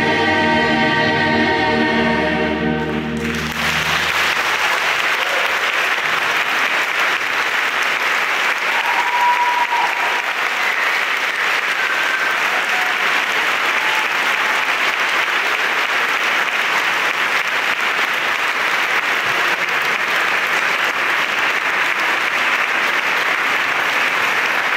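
A gospel choir's final held chord ends about three seconds in, and the audience breaks into steady applause.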